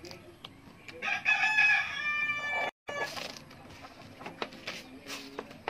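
A rooster crows about a second in, one long call that cuts off suddenly. Short crunches of biting and chewing on a raw banana leaf stalk follow.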